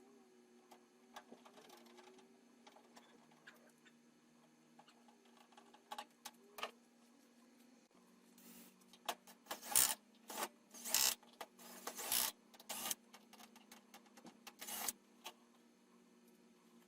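Scattered clicks and knocks of hands and tools working on a loose oven door panel, thin at first and then a busy run of louder clatter in the second half.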